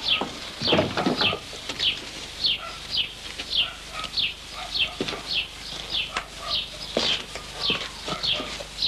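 A bird chirping steadily: a run of short, high, falling peeps, about two a second.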